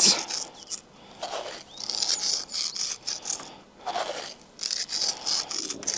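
Salt sprinkled by hand into a stainless steel tray of olive oil: a fine, high crackling rustle of grains rubbed between the fingertips and falling, in several short spells.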